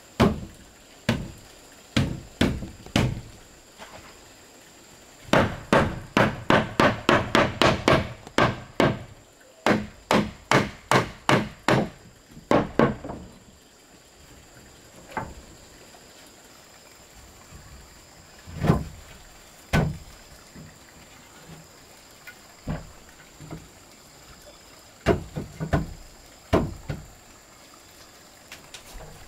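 Hammer striking wood: a few single blows, then two quick runs at about three blows a second, then scattered single blows.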